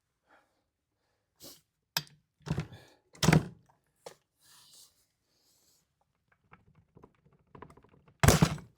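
A series of separate thunks and clunks from handling a chainsaw and tools, with softer clicks between them. The loudest knocks come about three seconds in and again near the end. No engine is running.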